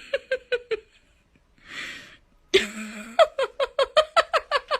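A high-pitched voice crying out in quick staccato pulses, about five a second, each dipping in pitch. There is a short run at the start, a breathy burst, then a longer and louder run from just past halfway.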